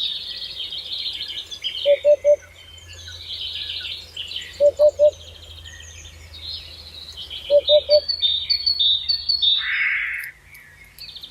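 Songbirds singing a busy, high chirping song, while a lower call of three quick notes comes three times, about every three seconds.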